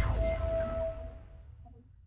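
Intro logo sting: the tail of a deep electronic boom with falling whooshes dying away, a ringing tone fading out about a second and a half in, then faint short notes.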